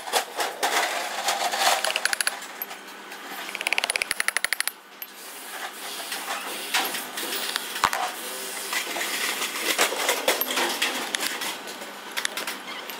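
Ball-peen hammer tapping on steel bearing housings, in quick runs of light metallic strikes mixed with single harder knocks and ringing.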